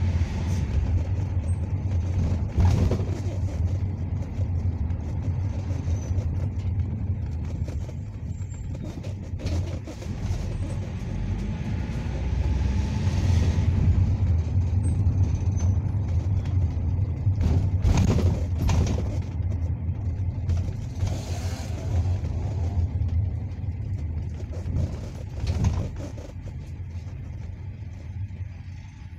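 Engine and road rumble heard from inside a moving NefAZ city bus, with a few sharp knocks and rattles from the body. It grows quieter over the last few seconds as the bus slows.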